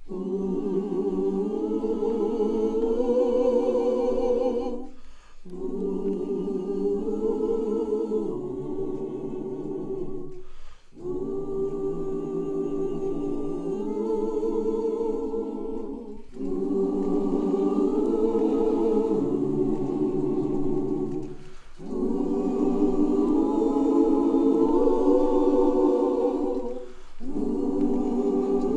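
Gospel choir singing sustained 'ooh' chords a cappella, in long held phrases of a few seconds each with short breaths between them.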